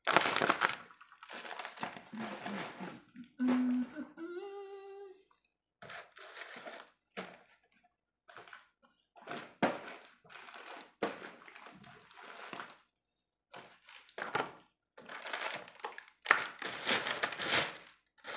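Plastic-wrapped toiletries and snack packages crinkling, rustling and knocking in short, irregular bursts as they are handled and packed into a suitcase. A brief hummed note from a voice comes about four seconds in.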